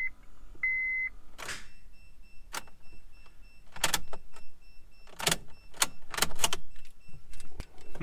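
An 8th-gen Honda Civic's dash chime gives one short electronic beep about half a second in. A series of sharp clicks follows, about eight spread irregularly over several seconds, with no engine cranking or catching: the R18 fails to start.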